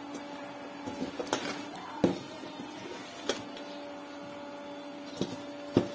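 A steady low machine hum with a second, higher tone, and a few sharp knocks and clicks of a utensil against a steel pot of spinach leaves, the loudest about two seconds in and near the end.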